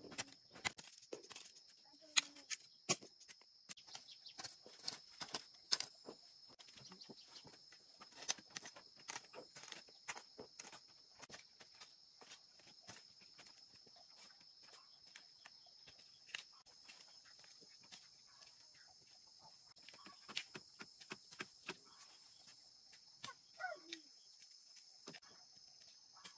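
A steady high-pitched insect drone runs under many irregular sharp clicks and knocks. A short animal call, like a hen clucking, comes about 23 seconds in.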